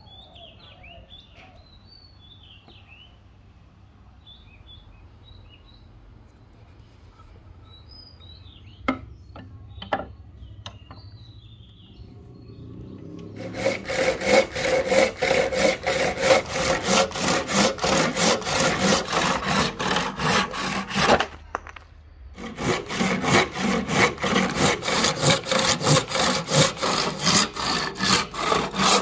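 A handsaw cutting through a block of black and white ebony in quick, even back-and-forth strokes, starting about halfway in and pausing for about a second near the end.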